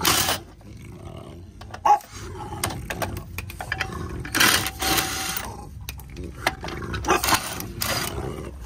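Cordless impact wrench hammering on a wheel's lug nuts in several short rattling bursts, about half a second each, with clicks of the socket and wrench between them.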